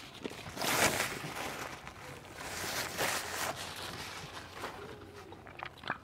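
Close-miked chewing and mouth sounds of a person eating chicken and shrimp Alfredo, with two louder noisy bursts, about a second in and around three seconds, and small clicks near the end.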